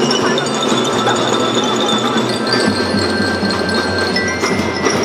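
Children's drum band playing: bell lyras ring held high notes over a layer of drums, with a sharp hit near the end.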